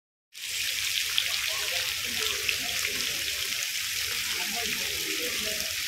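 Light rain falling: a steady hiss with scattered small drop ticks. Faint distant voices sit underneath.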